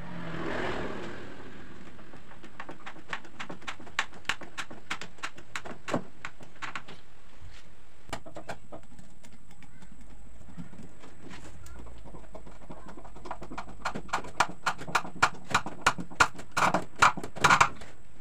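Screwdriver tip knocking and scraping against plywood: scattered sharp clicks, then a quicker run of louder strokes near the end.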